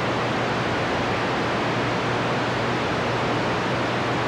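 Steady hiss of band static from a radio transceiver's speaker while it sits in receive with no station talking, a faint low hum underneath.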